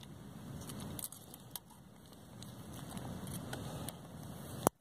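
A metal spoon clinks and scrapes inside a steel camp pot of ramen as the flavor packet is fished out of the noodles, over a steady low rushing sound. A single sharp click comes near the end.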